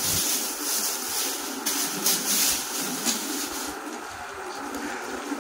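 Plastic shopping bag rustling and crinkling in irregular bursts as clothes are pulled out of it and handled.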